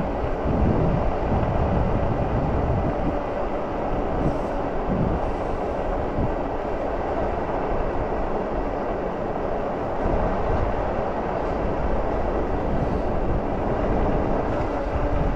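Wind buffeting the microphone and fat-tyre road rumble as an e-bike coasts downhill at speed, its motor in regenerative braking. A faint, steady high whine runs under the rumble.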